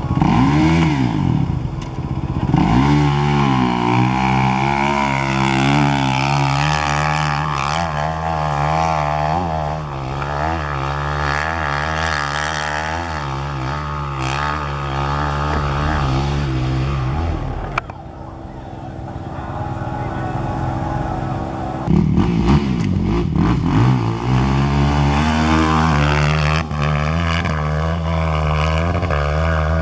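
Hill-climb motorcycle engine revving hard: two quick throttle blips, then a long stretch held at high revs with the pitch wavering up and down. It drops off a little past halfway and revs hard again a few seconds later.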